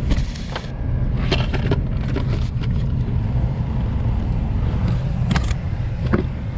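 1998 Chevrolet Camaro running, a steady low rumble, with a few short clicks and knocks scattered through it.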